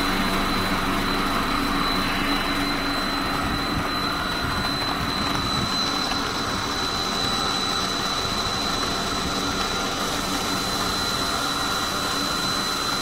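Snack-food frying line machinery running steadily: an even mechanical drone with a thin, steady high whine over it.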